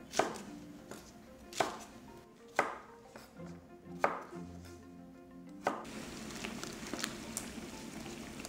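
Chef's knife chopping green onion and garlic on a wooden cutting board: four single chops about a second apart. Then, about two-thirds of the way in, water boiling steadily in a pot as the cut vegetables go in.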